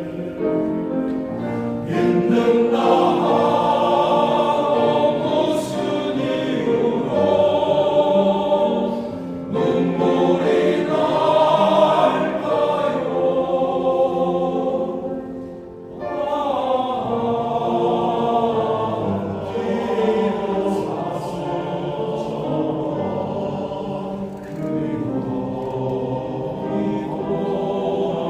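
Men's choir singing, with a short lull between phrases a little past halfway.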